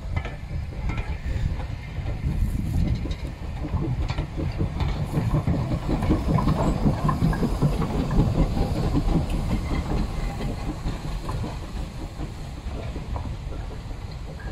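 Steam-hauled train passing close by: wheels clattering over the rail joints, steam hissing, and the rumble of the coaches and the saddle tank locomotive. It is loudest a little past halfway, as the locomotive goes by, and eases off towards the end.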